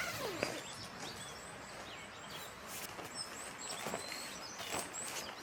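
Small birds chirping outdoors: short, high chirps repeat every half second or so over a steady background hiss, with a few faint clicks.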